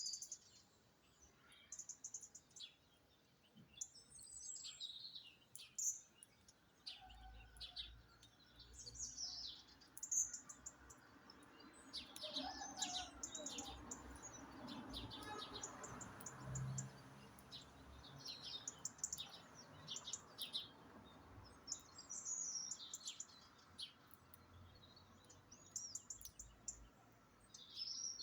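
Several birds chirping and singing in short, quick calls and trills throughout, with a faint low rumble in the background through the middle.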